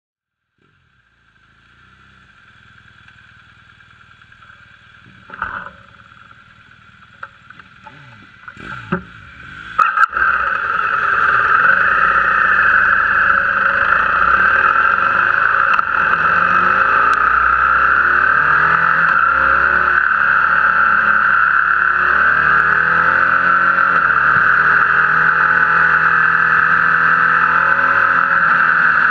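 Motorcycle riding on the road, heard from a camera mounted on the back of a BMW R1200GS beside its exhaust, the engine note rising and falling with the throttle. The first ten seconds are faint with a few knocks, and the riding noise comes up loud about ten seconds in.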